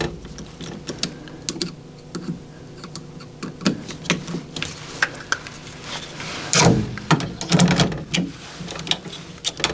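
Irregular clicks and taps of plastic parts of a Prusa XL 3D printer's extruder being handled and fitted back together, with a small Torx screwdriver, over a steady low hum. The clatter is busiest from about six and a half to eight seconds in.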